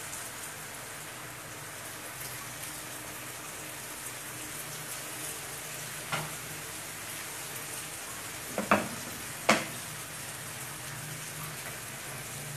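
Fish head curry sizzling steadily in a frying pan as coconut milk is poured in, with a few sharp knocks in the second half.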